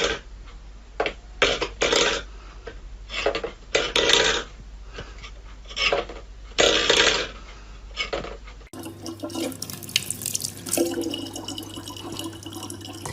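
Water splashing in irregular short bursts. After a change about two thirds of the way in, steadier running water with a low hum.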